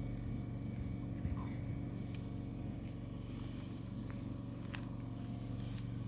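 Steady low motor hum with a few faint scattered clicks.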